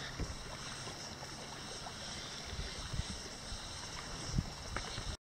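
Water splashing and lapping around a big-scooped touring kayak paddle blade as it is worked through the water, with low soft thumps of wind on the microphone. The sound cuts off suddenly near the end.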